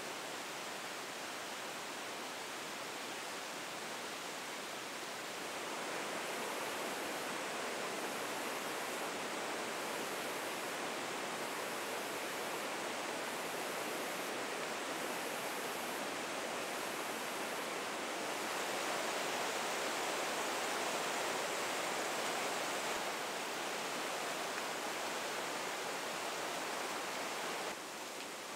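Stream flowing: a steady rushing wash of water that steps up in level about six seconds in and drops suddenly near the end.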